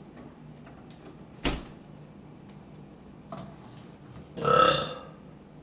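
A woman's short burp near the end, the loudest sound here, after a sharp click about a second and a half in.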